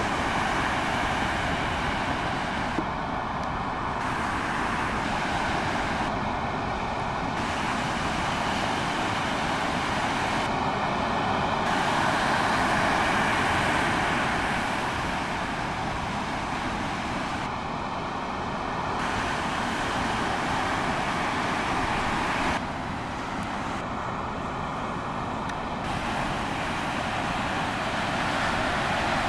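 Steady roar of breaking ocean surf, swelling and easing slightly.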